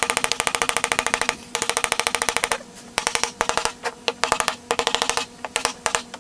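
Rapid-fire machine-gun sound effect: long runs of about twenty shots a second over a steady low tone, breaking into shorter, sparser bursts after about two and a half seconds, then cutting off suddenly.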